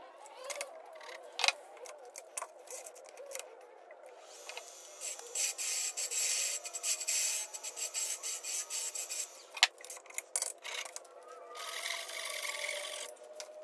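A turning tool cutting into spinning purpleheart on a Laguna Revo 15/24 wood lathe, parting the ornament off at the chuck end. There are a few sharp clicks in the first few seconds, then a long scraping hiss of about four seconds starting about five seconds in, and a shorter one near the end.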